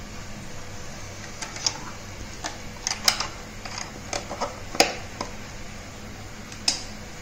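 Premier electric sandwich maker being shut: a scatter of light plastic clicks and knocks as the lid is pressed down over the bread and the handle latched, the loudest about five seconds in, over a faint steady hum.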